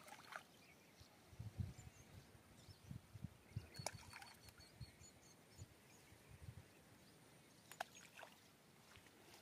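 Near silence: faint outdoor ambience with a few soft, low thumps scattered through it.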